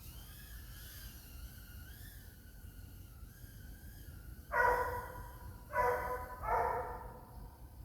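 A dog barking three times in quick succession, about four and a half seconds in, with a faint wavering whine beforehand.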